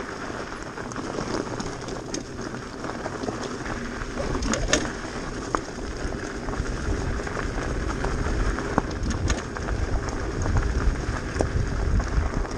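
Bicycle tyres crunching and pattering over a rough, stony dirt track, with the bike rattling over the bumps. Wind rumbles on the microphone, growing stronger about four seconds in.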